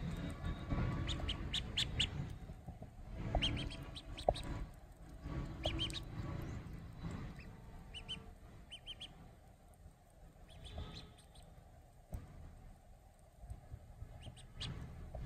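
Domestic duckling peeping: short, high cheeps in scattered clusters, with low rumbling noise underneath.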